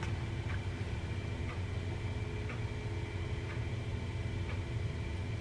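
Quiet room tone: a steady low hum with a faint tick about once a second.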